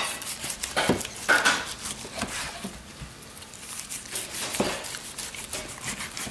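Long kitchen knife sawing through a peppercorn-crusted prime rib roast on a wooden cutting board: a run of short scrapes, crackles and taps.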